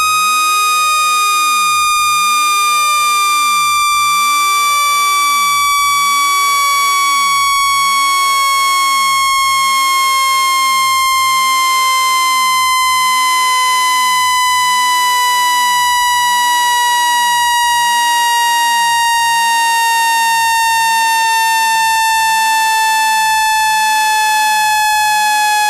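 Synthesized speaker-cleaning tone: a loud, steady, buzzy electronic tone that glides slowly and evenly down in pitch, played to vibrate water out of a phone speaker.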